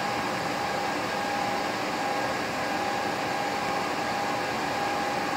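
Steady fan hum with a thin, steady whine.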